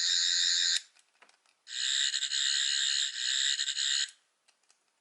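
Eleventh Doctor sonic screwdriver toy playing its warbling electronic sonic sound effect twice: a short burst, then a longer one lasting about two and a half seconds.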